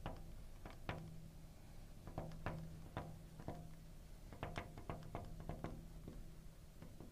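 Marker pen tapping and scraping on a glass writing board as letters are written: a string of light, irregular taps over a faint steady low hum.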